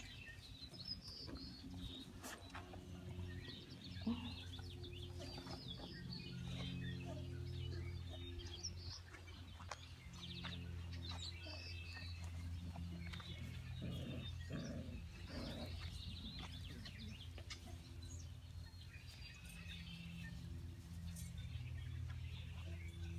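Birds chirping in scattered short calls over a steady low hum.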